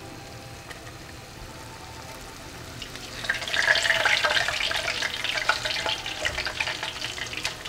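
A pan of sweet-and-sour sauce with shami patties in it, bubbling and sizzling as it comes to the boil; the crackling gets much louder about three seconds in.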